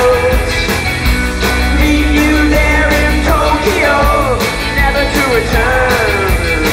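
Rock song with a steady drum beat, guitars and a singing voice.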